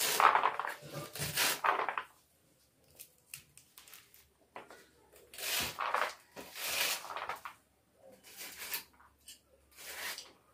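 Fresh radish leaves being chopped with a metal hand cutter: crisp cutting and crunching in four bursts of quick strokes, with short pauses between.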